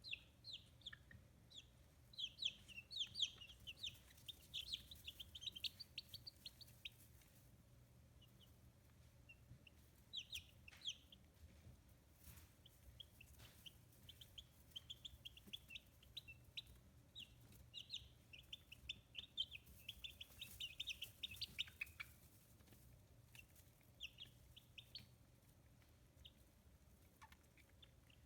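About two-week-old chicks peeping: many short high chirps in quick runs, with brief lulls between, thinning out over the last few seconds.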